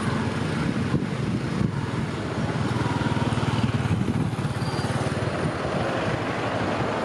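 Vehicle engine running steadily without revving, a dense low pulsing hum.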